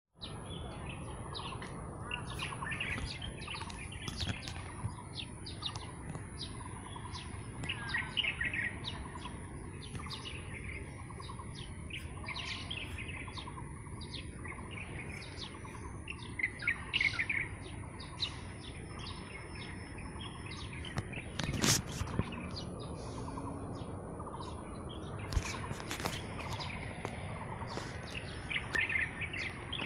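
Small birds chirping and calling in short, repeated phrases over a steady, high-pitched insect drone. A few sharp clicks stand out about two-thirds of the way through.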